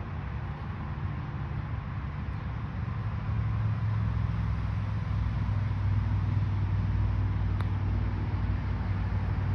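Low steady rumble of outdoor background noise, growing louder about three and a half seconds in, with a faint click of a putter striking a golf ball near the end.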